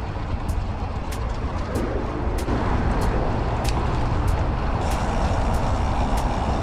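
Wind rushing over the microphone of a camera on a moving bicycle, mixed with the noise of cars on the road alongside. Light, regular ticks come through it about every half-second, and it grows a little louder about halfway through.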